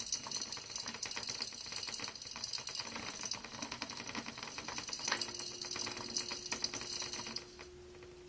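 Small clear plastic hamster wheel rattling with a fast, even clatter as two Roborovski dwarf hamsters run in it together; the rattle drops away near the end.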